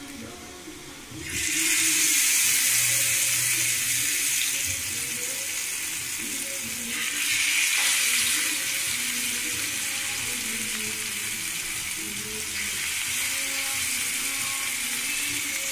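Hot oil sizzling in a cast-iron tawa as masala-coated fish pieces are laid in to shallow-fry. A steady hiss starts suddenly about a second in and swells again around seven seconds in.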